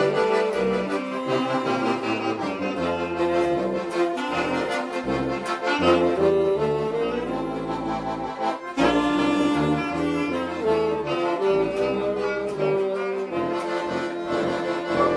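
Tuba, accordion, clarinet and saxophone playing a hymn together in held, stepwise melodic notes over a tuba bass line, with a brief break between phrases about nine seconds in.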